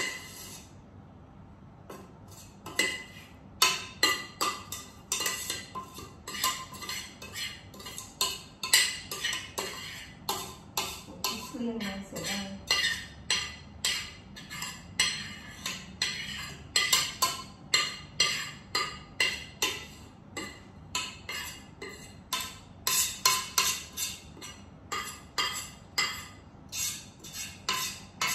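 Stainless steel mixing bowl clinking and knocking over and over, about once or twice a second, as food is worked in it by hand.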